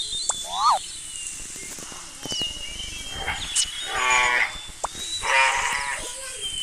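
Animal calls: two pitched, bleat-like cries in the second half, with a short chirp and a thin high tone in the background.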